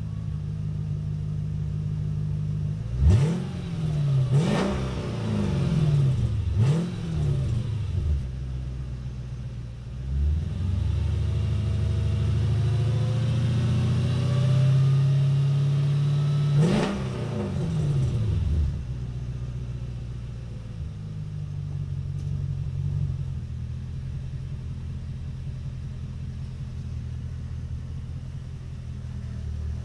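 Mercedes CLS55 AMG's supercharged V8 revved through an exhaust with its resonators and second catalytic converters removed and the cutouts partly open. It idles, then gives four quick blips of the throttle about three seconds in. A longer held rev follows, ending in one sharp blip, then it settles back to a steady idle.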